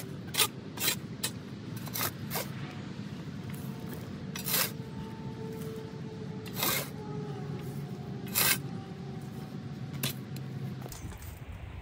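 Steel square-point shovel scraping loose soil off the bottom of a raised garden bed: a series of short, sharp scrapes a second or two apart as the last of the soil is cleared out.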